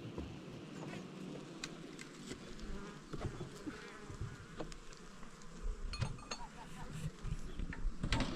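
Insects buzzing steadily, with a few light clicks and knocks scattered through.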